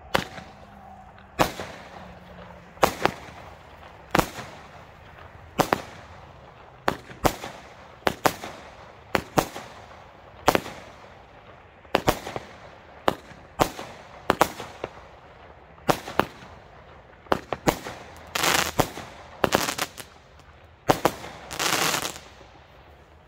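Comet 'Space Robot' 20 mm consumer fireworks battery firing shot after shot: a sharp bang about every second and a half, some in quick pairs, each with a short echoing tail. Near the end come two longer noisy blasts of about a second each.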